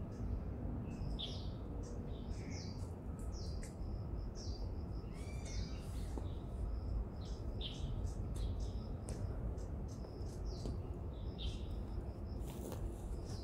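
Birds chirping, with short high calls that fall in pitch and repeat about once a second, and a faint run of rapid high ticks between them, over a steady low rumble.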